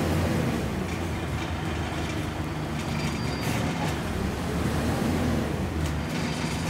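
Scania N94UB single-deck bus heard from a passenger seat inside: its engine running with a steady low hum that rises and falls gently in pitch, with a few light rattles of the interior.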